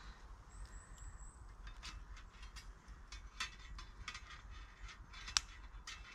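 Small wood fire in a metal box stove crackling, with light clicks and knocks as sticks are fed in by hand; one sharper click about five seconds in is the loudest.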